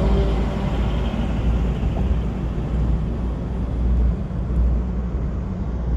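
Steady low rumble with road and wind noise from a moving vehicle.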